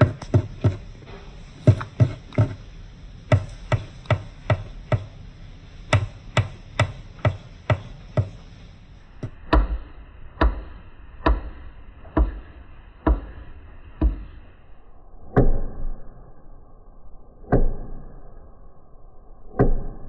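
Sun conure pecking its beak against the wooden edge of an open dresser drawer: a run of sharp knocks, quick and uneven through the first half, slowing to about one a second, then only a few spaced knocks near the end.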